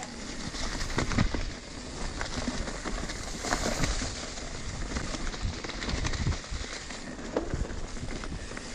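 Radon Slide Trail 10.0 mountain bike riding fast over a dirt trail covered in dry leaves: the tyres crackle through the leaves, with many small clicks and knocks from the bike over bumps and a constant low rumble.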